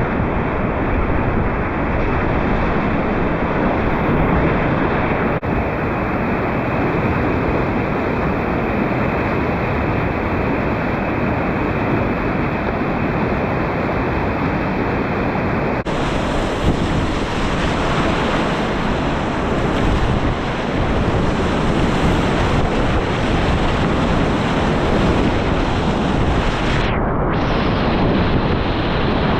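Rushing whitewater of river rapids close to the microphone, a dense steady noise of water with wind buffeting the mic. It changes abruptly twice, about 5 and 16 seconds in.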